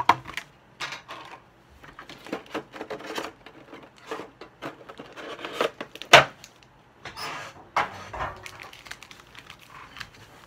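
Handling a metal Pokémon card tin and the packs inside it: irregular clicks, knocks and rustling, with a sharp knock right at the start and the loudest one about six seconds in.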